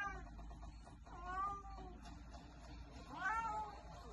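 Cat calls during a face-off between a serval and a house cat: two drawn-out meows, one about a second in and another about three seconds in, after the tail of a call at the start.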